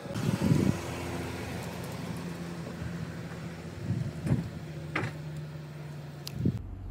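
A BMW SUV driving slowly past at low speed and on away, its engine giving a steady low hum, with a few soft thumps along the way.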